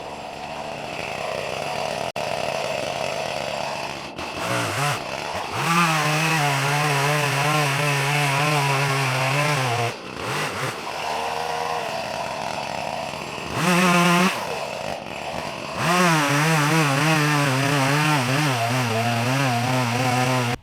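ECHO CS-310 two-stroke chainsaw cutting up a felled tree: it is opened up to full speed three times, its pitch wavering as the chain bites the wood, and drops back to lower speed between cuts.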